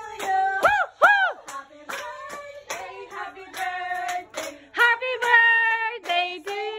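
Voices singing a birthday song, with hands clapping steadily in time to it.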